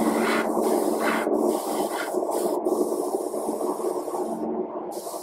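Gravity-feed paint spray gun hissing in bursts as its trigger is pulled and released, spraying paint onto a model wagon body. The hiss breaks off briefly twice, stops a little after four seconds in and comes back briefly near the end, over a steady low hum.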